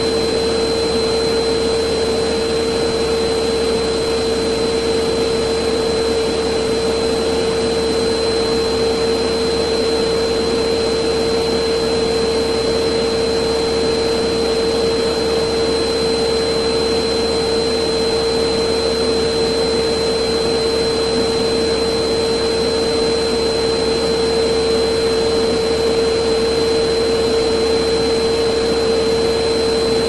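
Vacuum cleaner running steadily: a constant rush of air at an even level, with a steady hum and a fainter high whistle over it.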